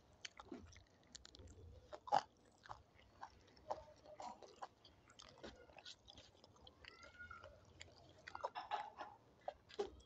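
A person chewing and biting a meal of dal, rice and papad: a run of short, wet mouth clicks and smacks with a few crunches. The sharpest click comes about two seconds in.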